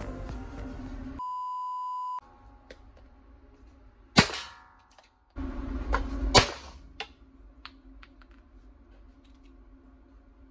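Two gunshots at an indoor shooting range, about two seconds apart, each with a short echo tail. About a second in, a steady single-pitch beep lasts about a second.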